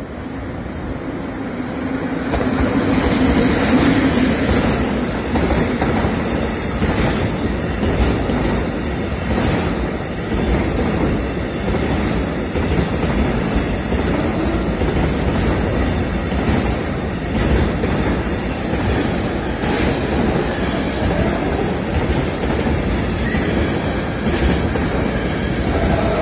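EU07 electric locomotive passing close at the head of a loaded container freight train, its hum swelling as it goes by a few seconds in. Then the container wagons roll past in a steady rumble, their wheels clicking irregularly over the rail joints.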